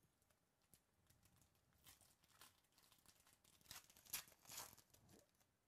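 Foil wrapper of a baseball card pack being torn open and crinkled by hand: faint, irregular crackling that gets busier and loudest about two to five seconds in.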